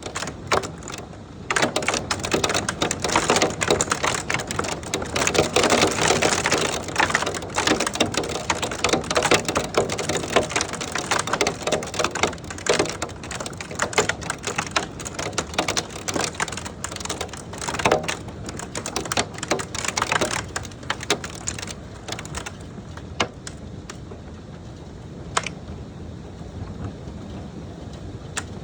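Hailstones pelting down in a dense clatter of impacts, thinning after about twenty seconds to scattered strikes over the hiss of falling rain.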